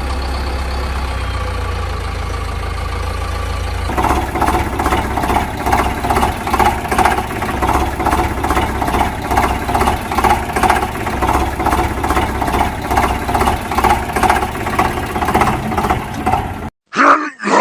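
A vehicle engine running steadily, then settling into a rhythmic chugging about twice a second, which cuts off suddenly near the end.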